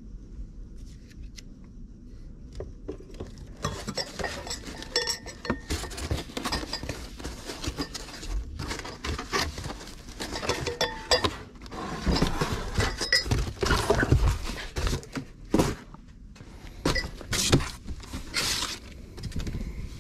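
Stemmed drinking glasses clinking as they are handled and packed into a cardboard box, with irregular knocks and rustling of cardboard and packaging, busiest in the second half.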